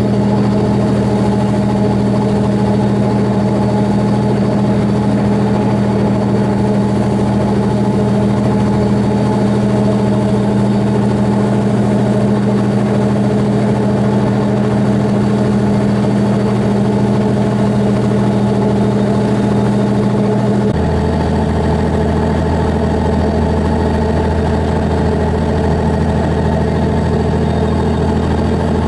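Boat engine running steadily, a low drone that changes abruptly to a deeper one about 21 seconds in.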